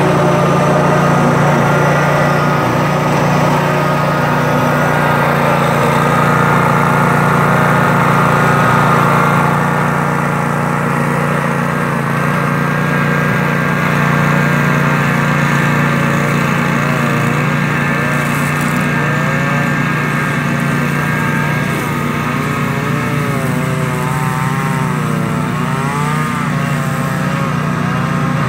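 Riding zero-turn lawn mower engines running steadily while cutting tall grass. In the second half a higher engine note wavers up and down as a mower works toward the camera.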